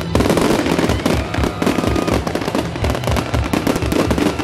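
Fireworks display: a dense, continuous crackle of many small bursts, setting in suddenly.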